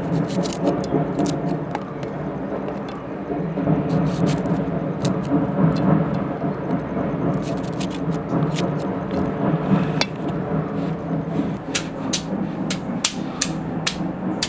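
A steady low rumble with a faint hum, and light knife clicks as green chillies are slit, coming faster and more evenly in the last few seconds.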